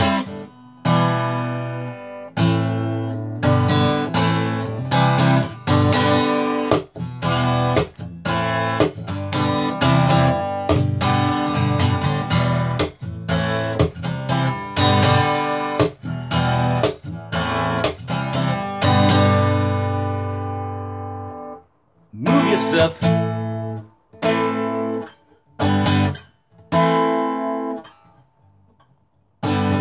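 Acoustic guitar being strummed in steady, rhythmic chords. About two-thirds of the way in, a chord is left to ring and fade. After that come short, separate strummed chords with brief silences between them.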